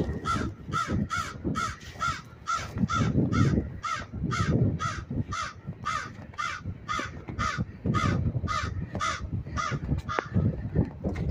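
American crow cawing in a long, rapid, evenly spaced series of short caws, about three a second, which stops shortly before the end. A low rumble runs underneath.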